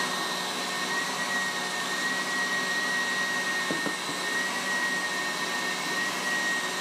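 Electric stand mixer running steadily at speed, whipping egg whites toward stiff peaks. Its motor gives a constant high whine over an even whirring noise.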